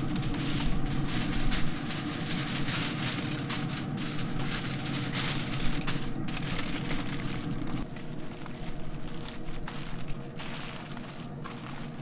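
Aluminium foil crinkling and rustling as gloved hands fold it tightly around a smoked pork butt, in a rapid run of crackles, over a steady low hum.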